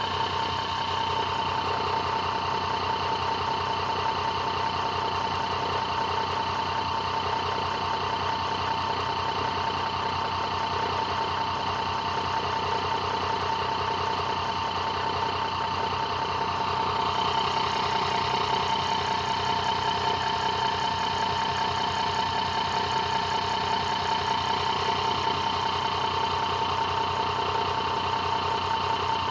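Homemade battery-charging rig of a brushless DC motor and microwave-oven transformers running steadily: a continuous hum with a high, even whine, which grows slightly brighter a little past halfway.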